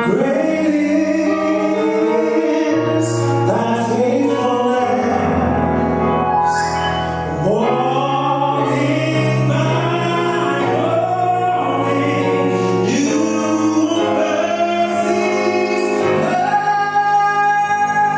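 Gospel choir singing a song live over band accompaniment, the voices gliding up into long held notes above steady bass notes.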